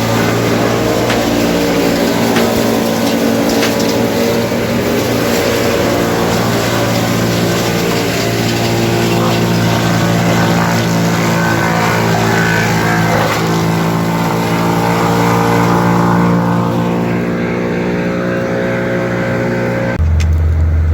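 A large engine running steadily under load, with scattered sharp knocks; the engine sound changes abruptly near the end.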